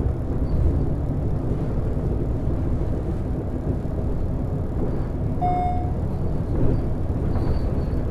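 Cab sound of a Volvo B12BLE bus with its DH12E six-cylinder diesel engine running, a steady low rumble heard from the driver's side. A short beep sounds about five and a half seconds in.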